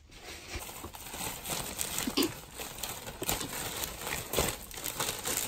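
Thin plastic shopping bags crinkling and rustling as hands grab and handle them, in irregular crackles.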